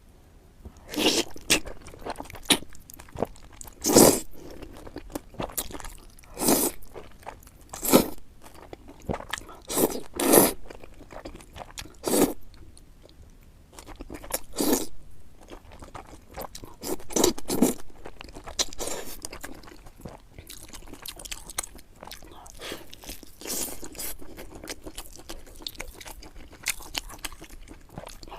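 A person eating close to the microphone: irregular crunching bites and chewing of chicken and noodles, with sharp loud crunches in the first half and softer chewing later.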